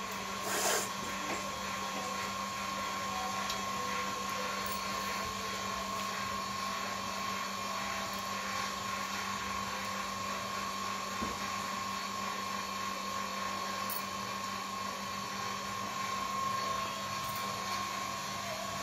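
Steady machine hum and hiss with a constant high whine, with one brief sharp knock shortly after the start.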